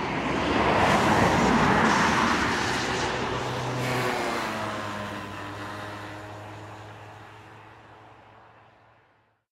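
A vehicle passing by on a street: road and engine noise swells, peaks about two seconds in, then slowly fades away, leaving a low steady hum that dies out near the end.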